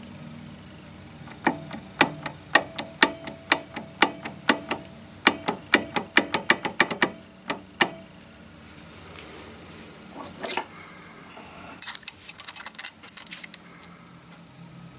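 Metallic clacks, about two to three a second, then after a pause a short jangling rattle near the end. This is part of a Yamaha XT660Z Ténéré's primary drive being rocked by hand with the engine off. It knocks through its free play without turning the crankshaft.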